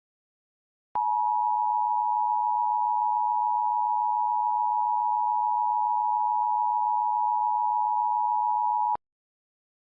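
Emergency Alert System two-tone attention signal: a steady pair of close tones just under 1 kHz, starting abruptly about a second in and cutting off sharply after about eight seconds.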